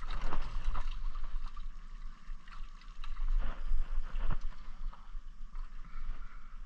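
Scattered knocks and bumps of someone moving about in a fishing boat at a dock, over a steady low rumble.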